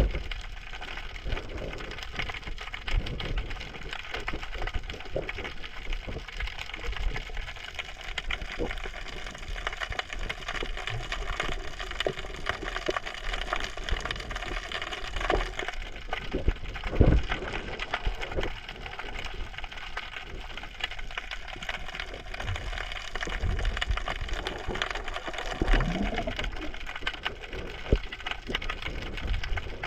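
Underwater sound picked up by a GoPro: a dense, continuous crackling and clicking, with a few dull thumps.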